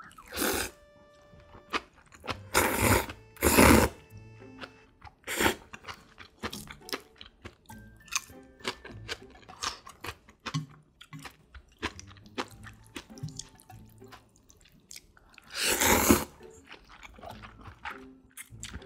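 Slurping long thin wheat noodles from a bowl of noodle soup in several loud sucks, the longest about 15 seconds in, with wet chewing and smacking between them.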